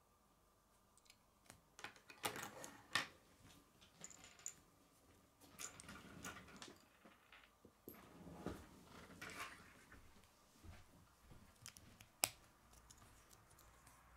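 Plastic K'nex pieces handled and snapped together: scattered light clicks and soft rustling, with sharper clicks about three seconds in and near the end.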